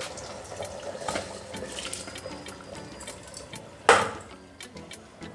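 Soaked rice and its water poured from a bowl into boiling liquid in an aluminium pressure cooker: liquid pouring and bubbling, with one sudden loud splash about four seconds in as the bulk of the rice slides in.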